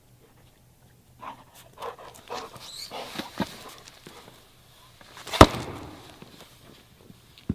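A run of light knocks and scuffs, then one sharp, loud knock about five seconds in.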